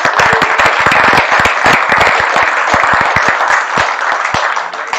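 Small audience applauding, loud, with separate sharp claps standing out; it dies away near the end.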